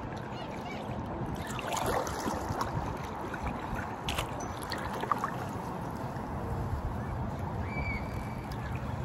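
Kayak being paddled: a double-bladed paddle dipping and pulling through the water, with water washing and dripping off the blades. A couple of sharp knocks sound about four and five seconds in.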